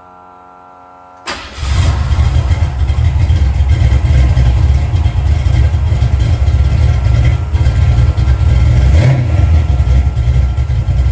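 Ford 302 small-block V8 with an aftermarket cam, running loud and unmuffled-sounding; it comes in suddenly about a second in and keeps running steadily.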